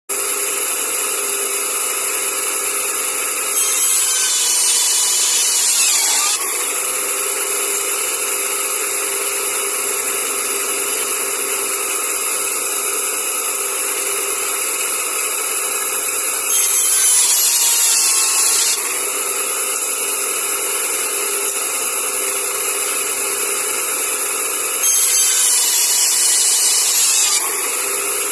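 Band saw running steadily, cutting through an arrow shaft three times; each cut lasts two to three seconds and brings a louder, higher hiss over the motor's steady running.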